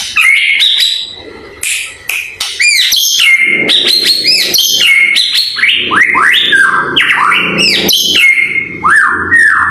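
White-rumped shama (murai batu), a pied 'blorok' bird, singing a fast, varied song. Sharp clicks and chips mix with repeated arching whistled notes.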